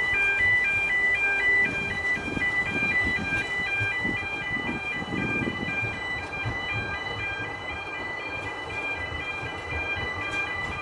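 Level-crossing warning alarm sounding continuously, alternating rapidly between two pitches, over the rumble of narrow-gauge railway carriages rolling across the road.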